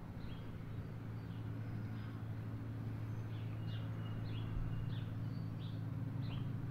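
Small birds chirping, short quick downward notes repeated many times, over a steady low hum.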